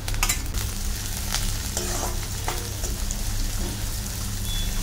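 Shredded cabbage and capsicum sizzling as they fry in hot oil in a kadhai, with a few sharp clicks of a steel ladle against the pan.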